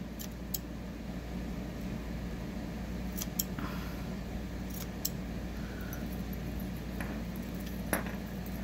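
Scattered small clicks and clinks of tangled metal costume jewelry and beads being handled and picked apart, over a steady low hum.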